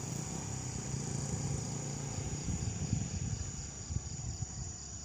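Steady, high-pitched insect drone with a fast pulse, from crickets or cicadas in the vegetation, over a low rumble with irregular thumps that are strongest around the middle.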